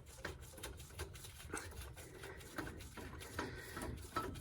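Faint, irregular small metallic clicks and rubbing from a bolt being turned out by hand from the turbocharger's mounting.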